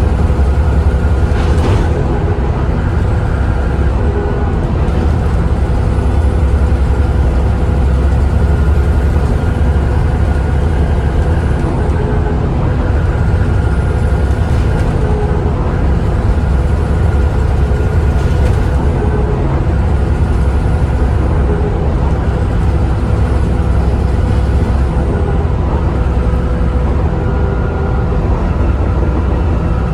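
Volvo B7TL double-decker bus driving, its engine running steadily under loud cooling fans that whine like a hoover. Faint high whines slowly rise and fall several times.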